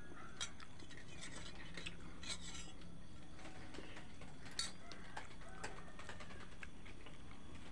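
Quiet, scattered clicks and light scrapes of eating by hand from a plate, as fingers pick up food and touch the plate's rim.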